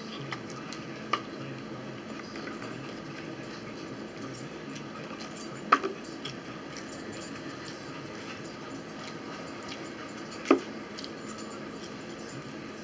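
Forks clinking against plates and food trays while eating: a few short sharp clinks, the loudest about a second in, about six seconds in and about ten and a half seconds in, over a steady background hum.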